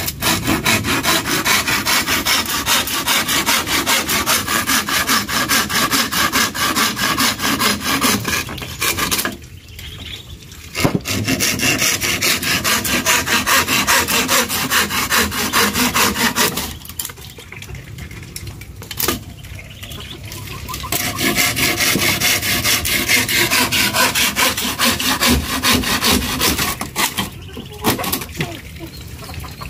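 A handsaw cutting split bamboo slats with quick, even back-and-forth strokes, in three long spells separated by short pauses.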